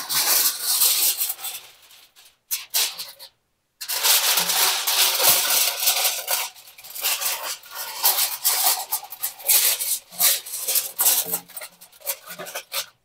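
Heavy-duty aluminum foil being handled, crumpled and folded by hand into a drip tray: loud, irregular crinkling and crackling that comes in bursts and cuts out completely twice for about half a second.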